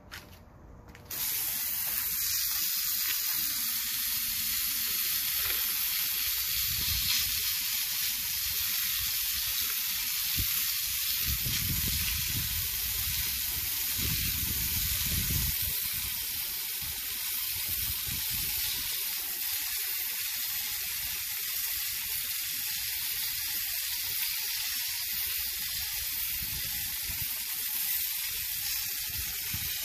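Garden hose pistol-grip spray nozzle spraying water onto concrete: a steady hiss that starts about a second in.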